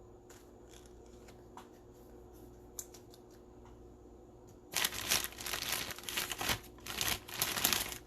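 Foil wrapper of a trading-card pack crinkling and tearing as it is opened, starting about halfway in after a few soft handling clicks.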